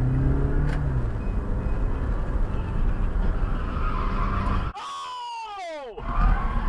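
Steady road and engine noise heard from inside a car cruising on a highway. About five seconds in, the rumble cuts out for just over a second while a whistle-like tone sweeps steeply down in pitch, and then the road noise comes back.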